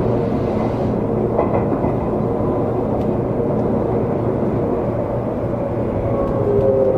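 Seibu 20000 series electric train running, a steady rumble of wheels and running gear with a traction-motor whine that drifts slightly lower in pitch near the end.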